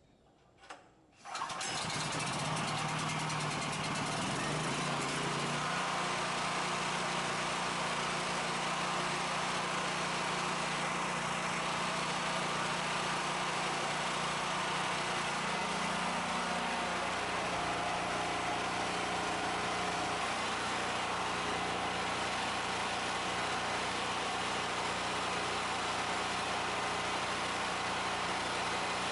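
Predator 8750 portable generator's single-cylinder 420cc engine starting about a second in and then running steadily.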